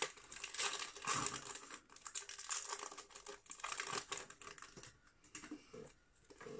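Foil wrapper of a Pokémon TCG booster pack crinkling and tearing as it is ripped open by hand, busiest over the first four seconds and then quieter and sparser.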